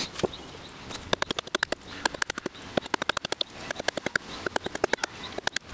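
Hultafors forest axe chopping rapidly into a sweet chestnut mallet handle on a chopping block: a quick run of sharp knocks, about five a second, starting about a second in.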